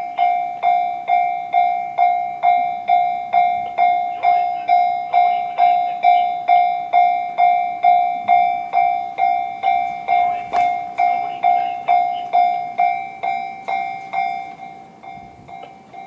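Electronic railway level-crossing warning bell giving the JR standard tone: evenly repeated dings, about two a second, each fading quickly, signalling an approaching train. The bell turns quieter about fourteen seconds in.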